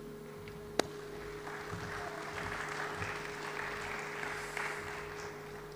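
Faint audience applause that builds about a second and a half in and fades away near the end, over a steady electrical hum, with one sharp click just under a second in.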